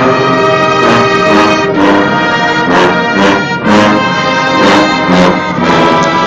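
Marching band brass section playing loud sustained chords, with sharp percussion hits landing about every half second to second.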